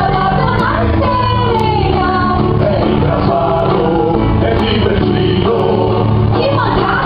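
A song with voices singing a melody over a steady bass accompaniment, played loud.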